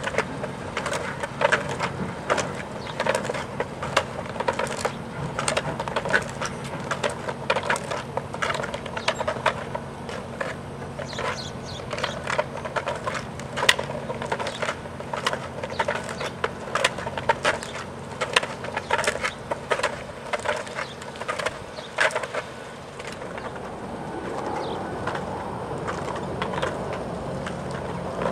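Reverse-leg digitigrade stilts clacking and tapping on concrete paving as the wearer walks: a run of irregular sharp clicks, a few a second, over a steady low hum. The clicks thin out over the last few seconds.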